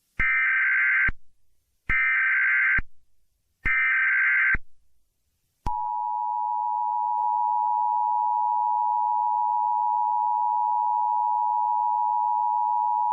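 Emergency Alert System header tones: three short bursts of shrill buzzing SAME data signal, each just under a second, then the two-tone EAS attention signal, a steady, piercing dual tone, starting about five and a half seconds in.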